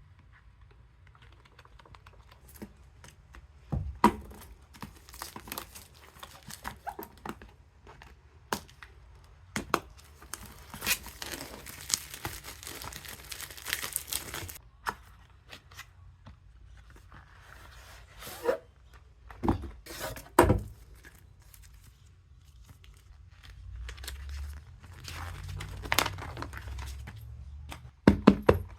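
Product packaging being opened by hand: paper and plastic tearing and crinkling, with scattered knocks and taps as the box is handled, and a longer stretch of tearing about halfway through.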